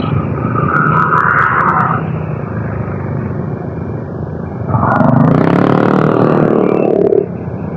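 Motorcycle running on the road, with a steady mix of engine and road noise. About five seconds in, an engine revs up, rising in pitch for a couple of seconds, then drops away sharply.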